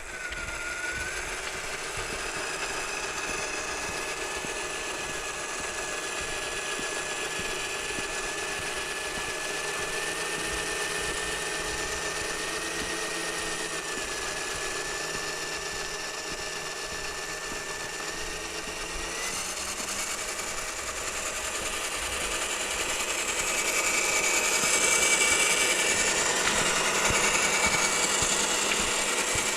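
Electric motor and gear drive of an RC scale crawler truck whining steadily as it drives. The pitch steps up slightly after about two-thirds of the way through, and the sound grows louder near the end.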